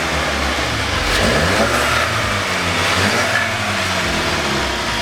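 Car engine running, its revs rising and falling.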